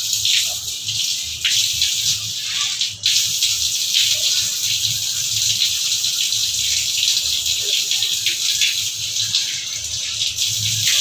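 Water running steadily from a wall tap and splashing while a person rinses her face and hands under it, with a brief break about three seconds in.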